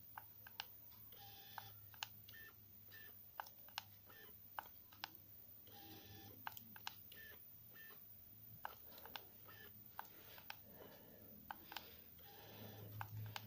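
Canon DSLR autofocusing with a Canon 50mm f/1.8 STM lens: faint short focus-confirmation beeps and small clicks, repeated many times as focus is found again and again. The lens's focusing motor is very quiet.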